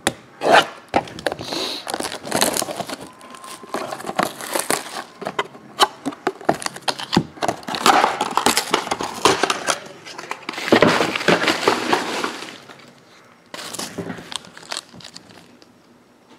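Packaging crinkling and crackling as a sealed trading-card box is cut open and its foil-wrapped card pack handled, with many small clicks and taps. A longer crinkle comes about two-thirds of the way in, and the sound dies down near the end.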